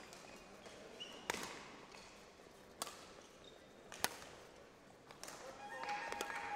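Badminton rally: rackets striking the shuttlecock, three sharp hits about a second and a half apart, with fainter ticks between, and a high squeaking near the end.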